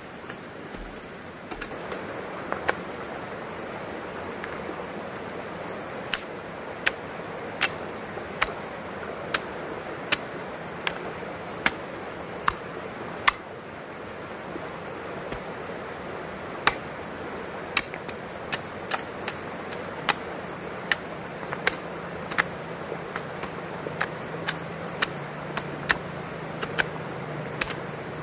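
Regular sharp strikes of a hand tool, a little more than one a second, with a pause of a few seconds around the middle. They sit over steady outdoor hiss and faint high insect chirring.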